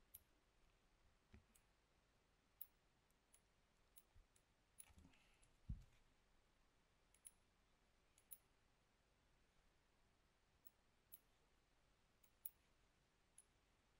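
Faint, irregular computer mouse clicks over near silence, with one soft low thump a little before six seconds in.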